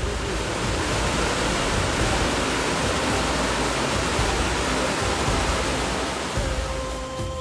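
Small mountain waterfall pouring over rocks: a steady rush of falling water, with music fading back in near the end.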